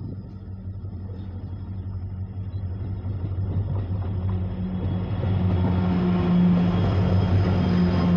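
WDP4 diesel-electric locomotive, with its EMD 710 two-stroke diesel engine, approaching and passing at the head of a passenger train. Its low, steady engine drone grows louder as it nears, peaking as it goes by near the end.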